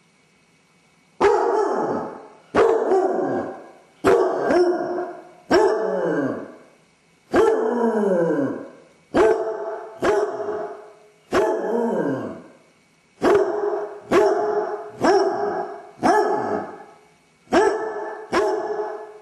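Basset hound barking again and again: about fourteen loud, drawn-out barks with a falling pitch, one every second or so, starting about a second in. The barking is the distress of a dog left home alone with separation anxiety.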